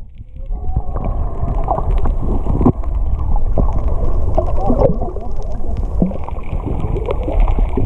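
Muffled underwater noise picked up by an action camera held below the surface: a steady low rush of water with scattered clicks and knocks, dull and without treble. It swells to full level about a second in, just after the camera dips under.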